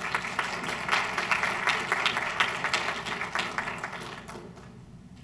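Small audience applauding, the clapping strongest over the first three seconds and dying away about four and a half seconds in.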